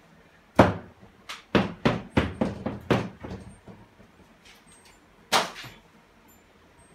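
A quick run of about seven sharp knocks in under three seconds, then one more a couple of seconds later.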